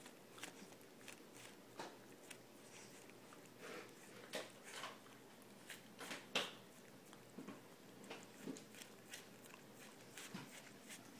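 Miniature pinscher puppy eating a frozen dog ice cream treat: faint, irregular chewing and mouth smacks, the loudest about six seconds in.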